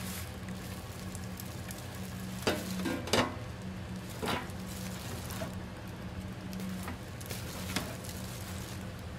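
Gloved hand tossing and scooping chili-seasoned julienned radish in a large metal pan, a steady wet rustling. There are a few sharp knocks of metal about two and a half to four and a half seconds in, over a low steady hum.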